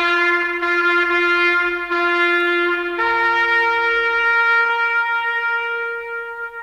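Soundtrack music: a solo trumpet holds a long note, steps up to a higher held note about three seconds in, and fades out near the end.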